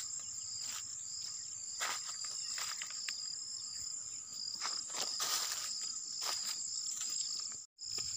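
Insects chirring steadily in a high, continuous tone, with a pulsing trill just below it. Irregular short crunches of footsteps on dry, trampled banana leaves come through them. The sound drops out for an instant near the end.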